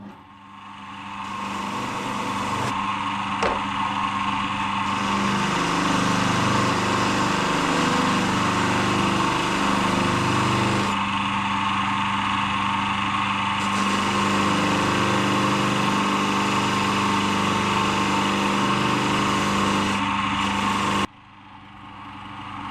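Electric polishing machine with a buffing mop spinning up and running steadily as brass bolts are polished on it, its hum wavering slightly under load. It stops abruptly near the end.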